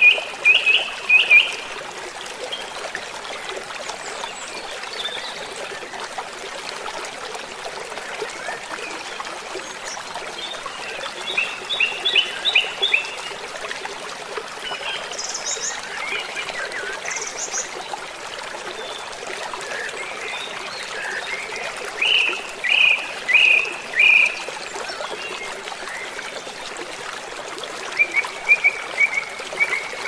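A stream running steadily, with small birds singing over it in short phrases of a few quick, high notes every several seconds. The loudest phrases come right at the start and about two thirds of the way through.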